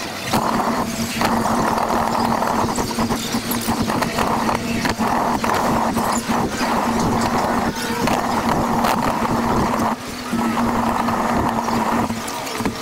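Electric drive motors of a mouse droid (MSE-6 replica) running with a steady hum as it rolls, its wheels and frame rattling and knocking over floor joins and pavement. The motor noise drops out briefly twice, about a second in and near ten seconds.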